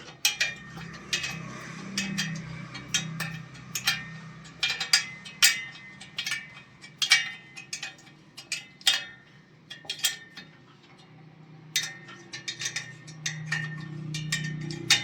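Irregular metallic clinks and taps of hand tools on metal, one or two a second, some with a short ring, over a low steady hum.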